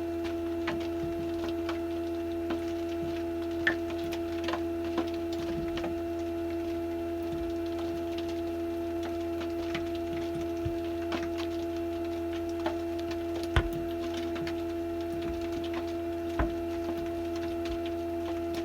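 Samsung DW80R5061UG dishwasher's motor humming steadily with a pure, even tone, heard from inside the tub, with scattered light clicks and taps over it.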